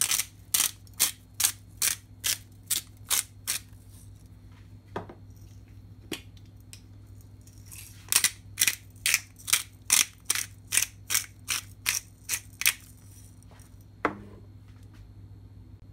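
Short, crisp cutting strokes, about two and a half a second, in two runs of roughly nine and thirteen strokes, with a few single strokes between them and one duller knock near the end.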